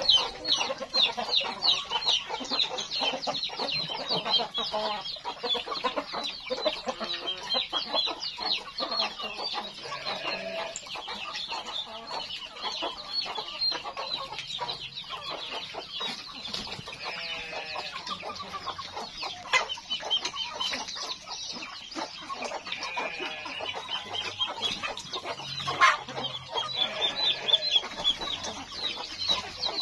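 A flock of free-range village chickens clucking and calling as they forage, with rapid high-pitched chirping running through most of it.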